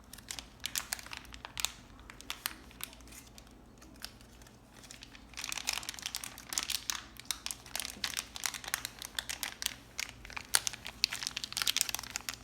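Plastic wrapping of a blind-bag surprise toy package being crinkled and pulled open by hand: scattered light crinkles at first, becoming dense and continuous about five seconds in.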